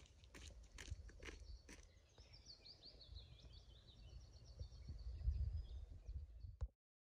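A bird singing a rapid run of high chirping notes over a low rumble, with a few sharp clicks before it. Everything cuts off suddenly near the end.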